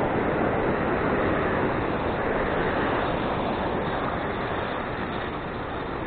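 Steady rushing of surf with wind buffeting the microphone, a constant even noise that eases slightly in the last couple of seconds.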